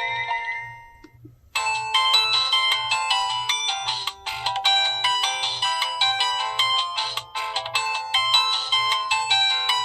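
Polyphonic ringtones playing from a Samsung SGH-T309 phone's speaker. The tail of one tune fades out, and after a short gap about a second and a half in, a new, busy electronic melody starts.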